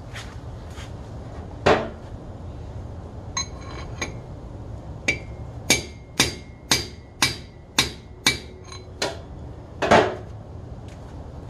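Hammer blows on a driver, seating a pinion bearing race into a cast-iron AAM 11.5 axle housing. About a dozen sharp metallic strikes with a short ring, spaced irregularly and mostly about two a second in the middle, the hardest one near the end. The race is cocked and not yet fully seated.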